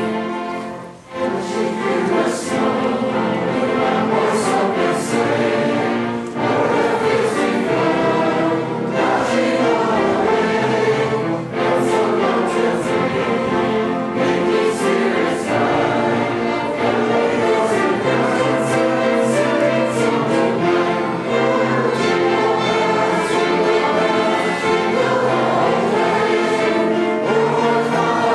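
A choir singing with orchestral accompaniment. The music dips briefly about a second in, then continues steadily.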